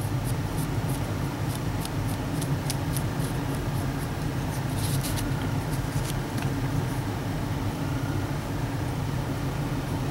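Steady low background hum, with faint, scattered light ticks and scratches from a small paintbrush working on a plastic action figure and a paper towel.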